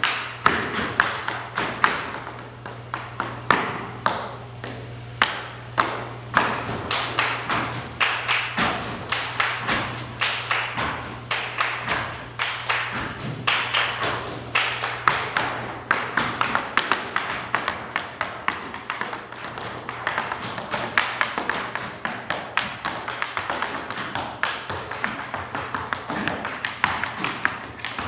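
Tap dancing: metal-tipped tap shoes striking the floor in fast, uneven runs of sharp clicks and heavier stamps. A low steady hum lies beneath for the first half.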